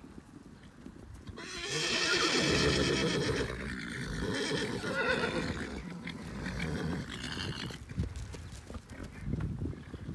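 Arabian horses whinnying as the herd gallops up over grass, with hoofbeats thudding underneath. A long, loud whinny starts about a second and a half in, and shorter neighs follow around five and seven seconds.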